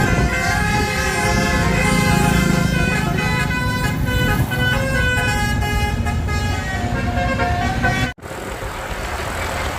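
A bus's Basuri 'telolet' multi-tone air horn plays a tune, stepping from note to note over the low running of the bus engine. It cuts off suddenly about eight seconds in, and plain road noise follows.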